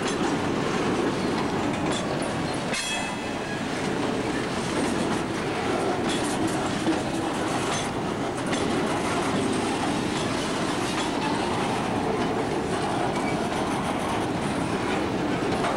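Freight train cars rolling past: a steady rumble with irregular clicking of wheels over the rails, and a brief high-pitched squeal about three seconds in.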